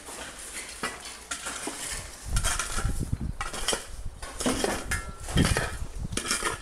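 Irregular clinks and knocks, joined by heavy low thumps from about two seconds in.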